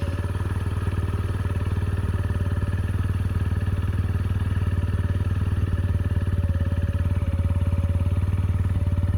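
KSR TW 125 cc supermoto engine idling steadily through an Arrow aftermarket silencer with its dB-killer insert fitted, a rapid, even exhaust beat. This is the standstill noise test, which reads almost 73 dB on the meter.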